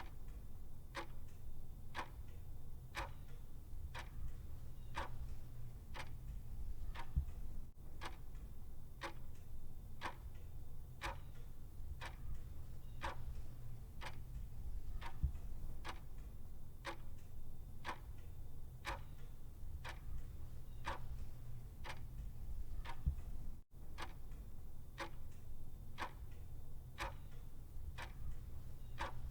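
Clock ticking: steady, evenly spaced ticks, over a faint low hum.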